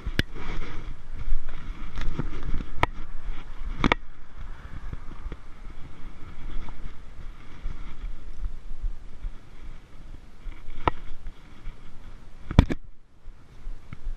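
Sharp knocks and clicks of climbing gear and hands against a tree during a climb, several in the first few seconds and two more near the end, over a low wind rumble on the microphone.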